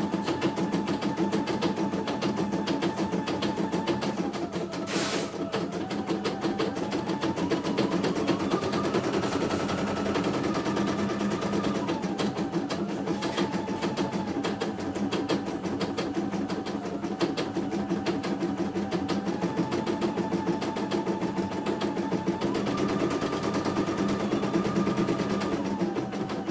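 CNY E900 computerised embroidery machine stitching a design: rapid, even needle strokes over a whine that shifts pitch every few seconds. A sharp click comes about five seconds in.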